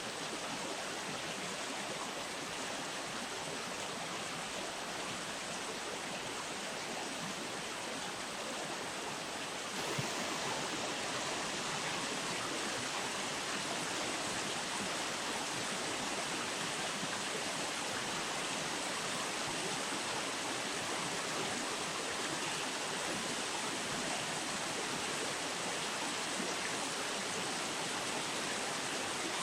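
River water rushing steadily, an even hiss with no distinct calls over it; it turns a little louder about ten seconds in.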